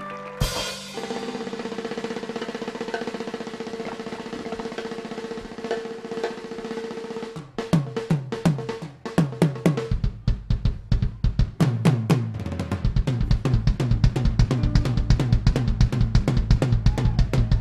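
Live drum kit played hard: a crash about half a second in, then a steady roll with a held tone. From about seven seconds this gives way to a rapid run of tom and bass-drum strokes, each tom hit dropping in pitch, building into a driving beat.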